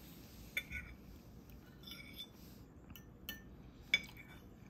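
A metal fork clinking and scraping against a ceramic dinner plate as it gathers the last scraps of food: several short clinks, the sharpest about four seconds in.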